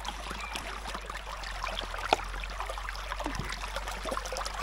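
Creek water trickling steadily over stones, with one sharp click about two seconds in.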